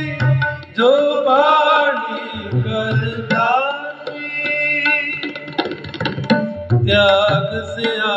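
Sikh Gurbani kirtan: harmoniums holding steady chords under tabla strokes, with male voices singing long gliding melodic runs that come in about a second in, again around three seconds in, and near the end.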